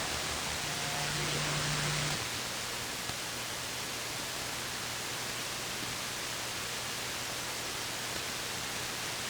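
CB radio receiver hissing with open static between transmissions, with a low steady hum underneath that shifts in pitch about two seconds in.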